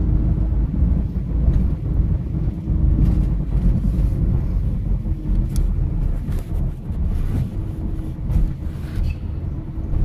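A car driving, its engine and road noise a steady low rumble, with a faint hum that comes and goes.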